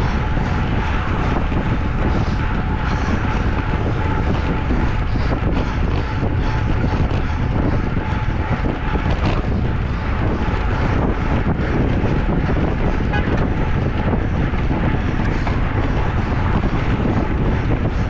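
Steady rushing wind and road noise from riding along a road, with low rumbling wind buffeting on the microphone.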